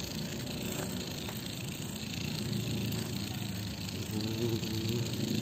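Tamiya Mini 4WD car running along rough pavement, its small electric motor and plastic wheels making a steady low rumble. The speed controller is turned to a moderate, fast-walking speed.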